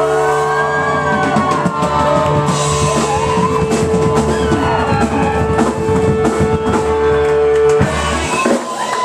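Live Celtic rock band playing with drum kit and guitar over a held chord, which stops abruptly about eight seconds in as the tune ends.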